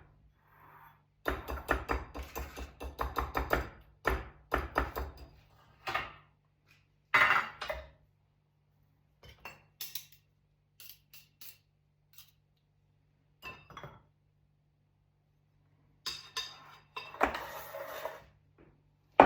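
Kitchen utensils (whisk and spoon) knocking, clinking and scraping against a mixing bowl of cupcake batter. There is a run of quick strokes in the first few seconds, then separate knocks and light clinks, and a longer scraping stretch near the end.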